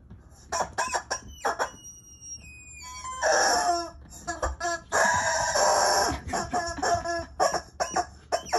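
Squeaky rubber chicken dog toy squawking as it is squeezed: a run of short, high squeaks with two longer squawks, about three and five seconds in.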